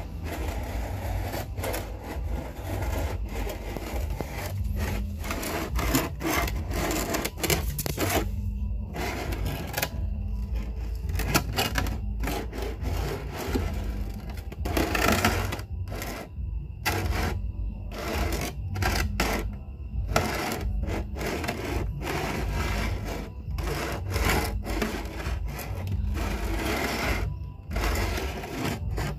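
Steel dental instrument working a lower molar in its socket during an extraction: irregular scraping and crunching against tooth and bone, with short pauses, over a steady low hum.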